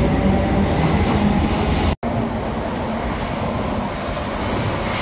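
ScotRail electric multiple unit running past on the underground platform: a steady rumble of wheels with a motor whine. After a momentary break, a quieter rumble of the next train approaching through the tunnel, with a high hiss near the end.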